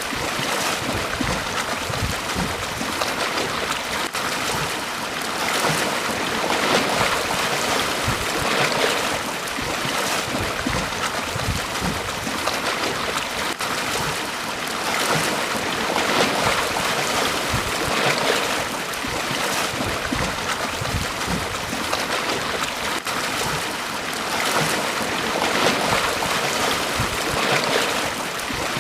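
Small sea waves breaking and washing up a beach: a steady rush of water that swells every few seconds.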